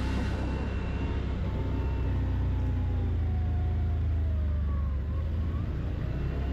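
ATV (quad) engine running steadily while riding, a continuous low drone.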